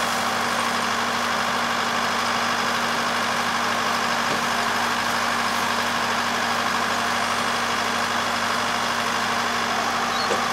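Four-row rice combine harvester's engine running steadily while the machine stands still, a constant even hum with no change in speed.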